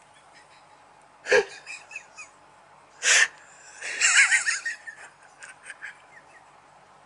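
A person stifling laughter: two sudden breathy snorts about two seconds apart, then a short burst of high-pitched giggling, trailing off into small breathy giggles.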